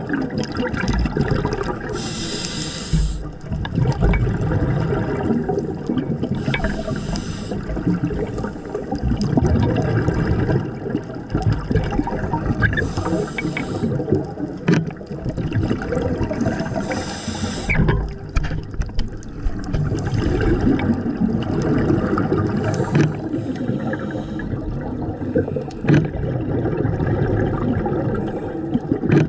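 Underwater ambience from a scuba dive: a steady low water rumble, with a bubbling hiss every four to five seconds as the diver's regulator exhales bubbles.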